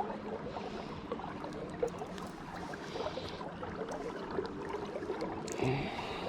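Steady rush of flowing river water, with a brief louder handling sound near the end.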